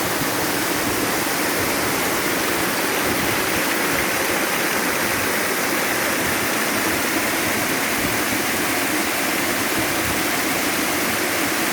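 Waterfall pouring and splashing, a steady rushing noise.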